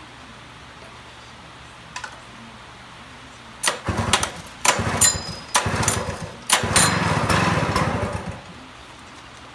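Robin EC12 small engine being pull-started: four pulls in quick succession, each firing briefly, the last catching and running for about two seconds before it dies out.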